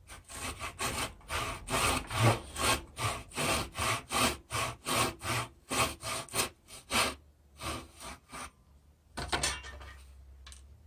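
Small back saw cutting a 45-degree miter across a thin half-round wooden molding in a wooden guide jig: quick, even push-and-pull strokes at about three a second, stopping about eight and a half seconds in. A single short sound follows about a second later.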